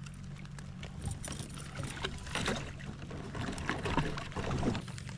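A steady low motor hum, most likely a boat motor, runs throughout. From about two seconds in, irregular splashing and handling clatters play over it.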